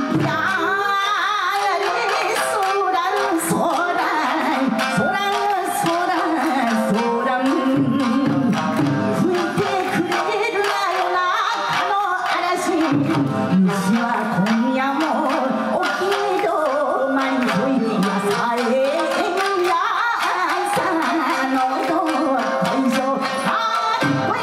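Japanese folk song sung by a solo singer with gliding, ornamented phrases, accompanied by an ensemble of plucked shamisen and beats on a taiko drum.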